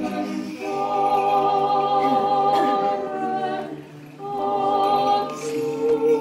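Small vocal group singing an Orthodox liturgical hymn a cappella, holding long chords; the singing breaks off briefly about four seconds in and then goes on.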